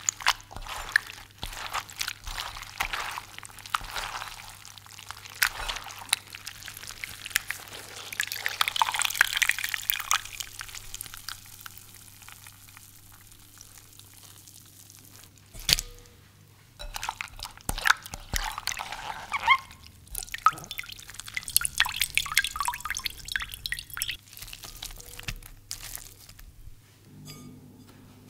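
Hands squeezing wet zucchini ribbons over a glass bowl: squelching vegetable and water dripping and splashing into the pooled liquid, in two long bouts, with one sharp knock in the quiet stretch between them.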